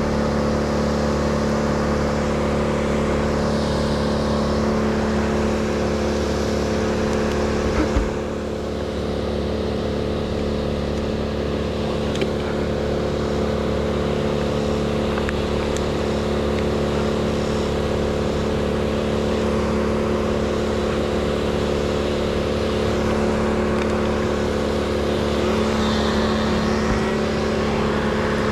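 An engine running steadily at a constant speed, with a brief thump about eight seconds in.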